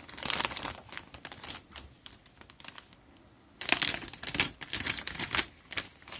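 Plastic packaging crinkling and clicking in the hands as earphones are unpacked from their box, in two spells of quick crackles with a short lull between them, the second spell louder.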